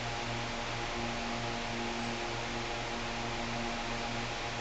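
Steady electrical hum, a stack of low even tones with a slight pulse, over an even hiss: workshop room tone.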